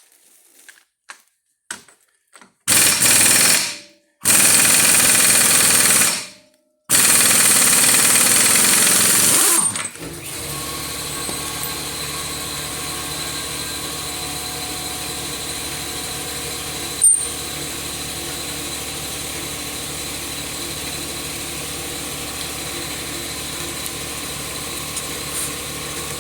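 Impact wrench hammering in three bursts of about one and a half to three seconds each on the front brake and hub fasteners of a Jeep Grand Cherokee. After the bursts a steady machine hum starts and runs on, with one sharp click partway through.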